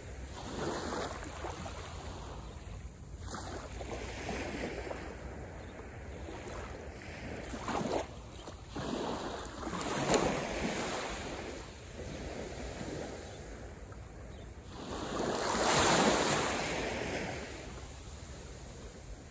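Small waves breaking and washing up over a white sand beach. The wash swells and fades every few seconds, and the loudest surge comes about three-quarters through.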